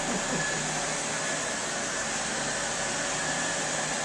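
SEBO Felix vacuum cleaner running steadily: an even rushing hiss with a faint high whine.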